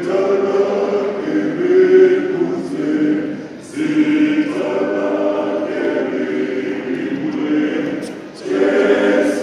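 A choir singing unaccompanied, holding sustained chords in phrases, with brief breaks between phrases about four seconds in and near the end.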